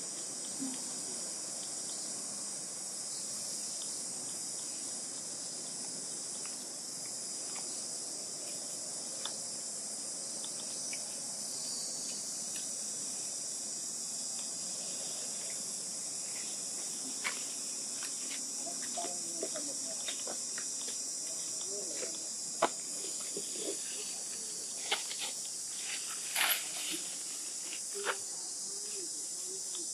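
Steady high-pitched drone of an insect chorus, with scattered short clicks and a few brief chirps in the second half.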